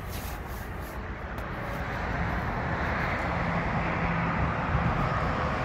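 Distant engine noise: a steady rushing drone with a faint low hum in it, growing a little louder over the first few seconds and then holding.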